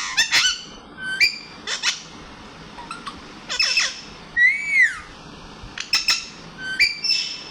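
Pet parrot calling in a string of short, sharp squawks, with one longer arching whistle about halfway through. This is its noisy morning calling.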